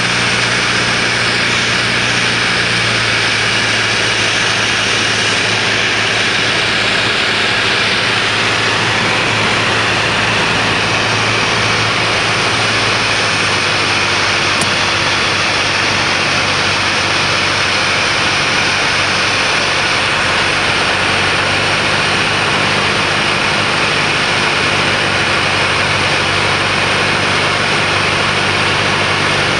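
Cabin noise of a light aircraft on final approach: a steady engine drone with a rush of airflow, the engine note shifting slightly a few seconds in.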